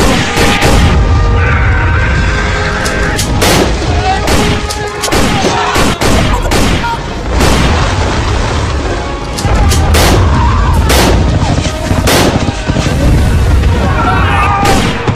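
Battle sound effects: many sharp gunshots at irregular intervals and heavy low explosion booms, over music.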